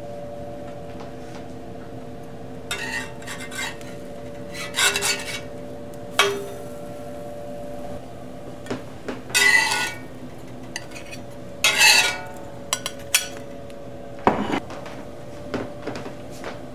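A metal spatula scraping and knocking on a cast-iron griddle as pancakes are flipped, in about half a dozen short bursts with a sharp click among them, over a steady hum.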